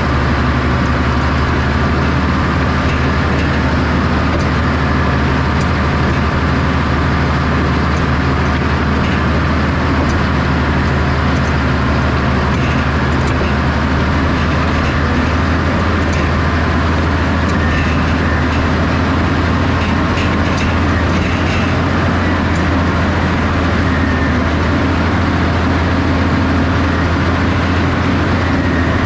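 Cat D6H Series II crawler dozer's diesel engine running steadily under load as the blade cuts and pushes dirt, heard from the operator's seat.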